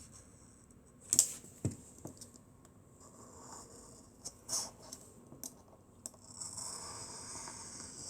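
Small tool clicking and scraping against the back of a Galaxy S7 smartphone as it is pried at the heat-softened adhesive, which is not yet releasing. A few sharp clicks, then a steady scratchy scraping for the last couple of seconds.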